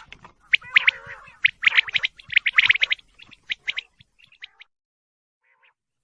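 Female quail calling: quick clusters of short, sharp, high calls that thin out after about three seconds and stop well before the end.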